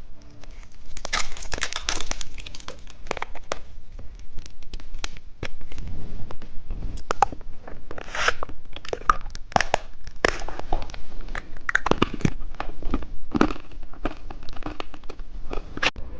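Plastic candy wrappers crinkling and tearing as they are handled, a dense run of irregular crackles and rustles.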